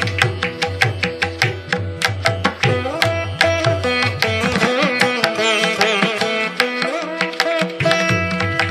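Instrumental background music in an Indian classical style: plucked strings over a steady tabla rhythm, with some notes bending in pitch.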